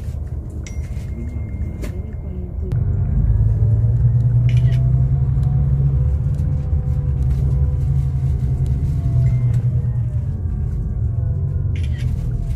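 Low rumble of a moving bus's engine and tyres, heard from inside the cabin. It grows louder about three seconds in, with a faint whine that slowly rises and falls.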